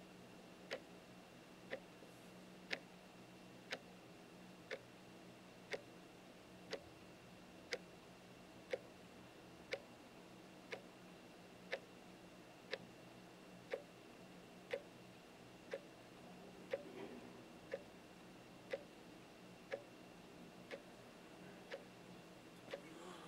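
Battery-powered analog wall clock ticking, one sharp click a second, unaltered and loud enough to keep a sleeper awake. A soft rustle of bedding comes near the end.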